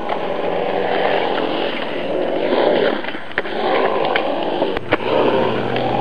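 Skateboard wheels rolling over a concrete skate bowl, a rough rumble that swells and fades as the boards pass, with a few sharp clacks.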